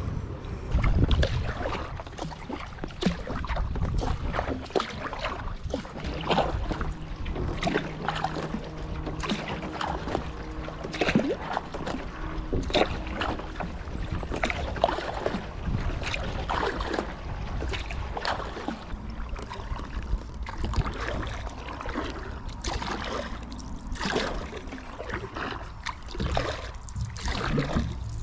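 Wooden Greenland paddle dipping and splashing in irregular strokes as a plywood paddle board is paddled kayak-style, with water dripping and trickling between strokes.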